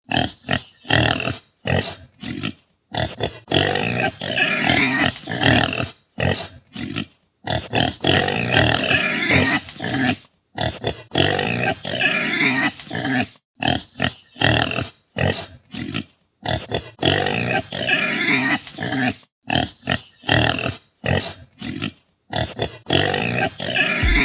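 Pigs calling loudly in a rapid run of noisy bursts, broken by short gaps.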